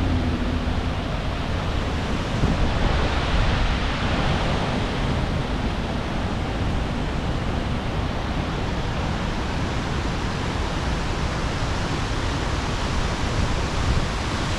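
Noccalula Falls waterfall, a steady, loud rush of falling water, swelling slightly a few seconds in.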